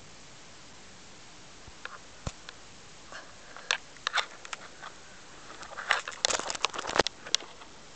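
A kitten playing up close against the camera: scattered light clicks and rustles, then a dense run of loud clicks and knocks about six to seven seconds in as the camera is bumped and jostled.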